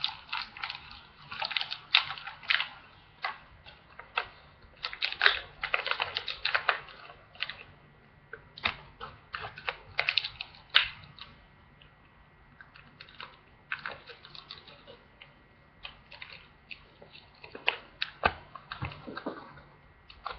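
Small plastic toy pieces and their packaging being handled and taken out, making irregular clicks, rattles and rustles in clusters with short pauses between.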